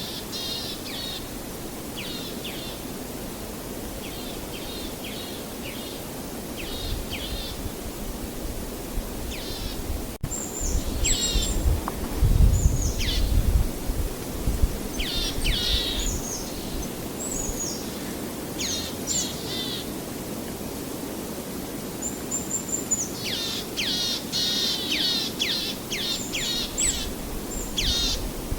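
Songbirds calling in runs of quick, high chirps that sweep downward in pitch, busiest near the end, over a steady rushing background. A deeper rumble swells up in the middle for a few seconds.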